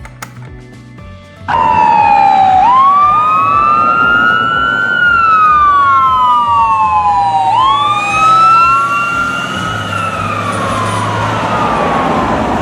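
Emergency-vehicle siren wailing: two slightly offset tones that sweep up quickly and sink slowly, about twice over, over a hiss. It starts abruptly about a second and a half in and cuts off suddenly.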